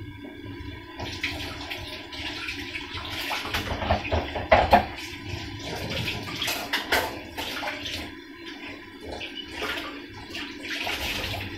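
Kitchen tap running into the sink from about a second in, with knocks and clatter of things being handled and rinsed under the water; the loudest knocks come a little under halfway.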